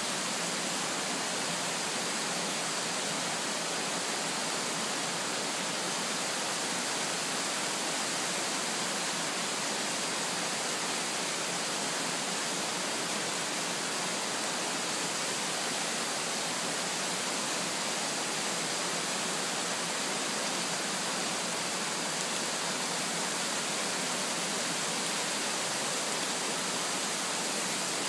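Steady, even hiss of falling and running water, unchanging throughout.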